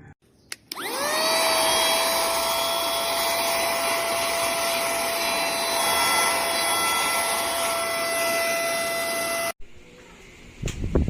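Cordless handheld vacuum cleaner switched on with a click, its motor spinning up over about a second to a steady high whine over a rush of air. It runs for about eight seconds, then cuts off suddenly. Low knocks from handling follow near the end.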